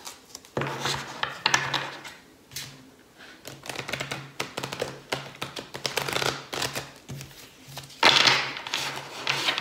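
A deck of Guardian Angel Tarot cards being shuffled by hand: bursts of rapid card flutter and clicks with short pauses between them. The loudest burst comes about eight seconds in.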